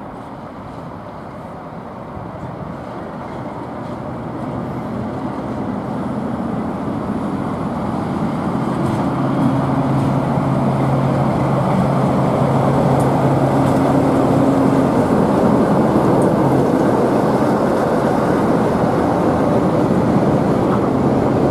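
Class 47 diesel locomotive's Sulzer twin-bank engine running with a steady low drone as it hauls a train into the platform. It grows louder over the first half as the locomotive approaches, then stays loud as it passes close by.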